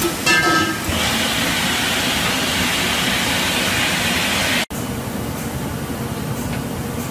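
A brief metallic squeal, then the steady hissing rush of gas burner flames playing over a steel LPG cylinder body. The sound cuts off abruptly about two thirds of the way in and gives way to a lower, steady factory machinery hum with a few faint clicks.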